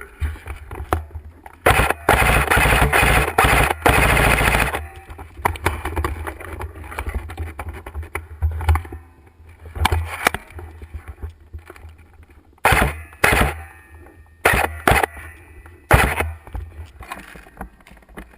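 SCAR-L airsoft rifle firing in rapid full-auto bursts: one long burst of about three seconds starting near two seconds in, then several short bursts spread through the second half.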